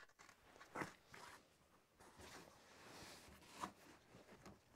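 Faint handling noise: a couple of soft knocks or clicks, with a stretch of light rustling in the middle, as stiff sheet material is handled.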